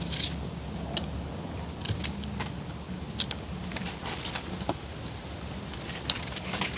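Small knife slicing onion and carrot held in the hand: a few irregular, faint, sharp clicks as the blade cuts through, over a low steady rumble.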